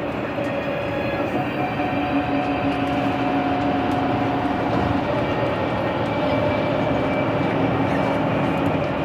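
Steady interior noise of a vehicle travelling at speed on a highway: road and engine noise with a steady hum, one of its tones dropping out about halfway through.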